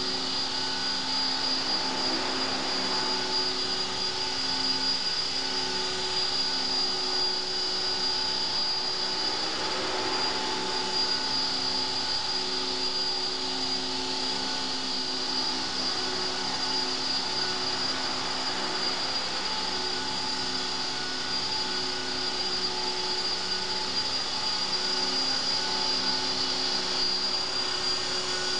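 CopterX 450 Pro electric RC helicopter hovering low, its brushless motor, gears and rotor giving a steady high-pitched whine made of several steady tones.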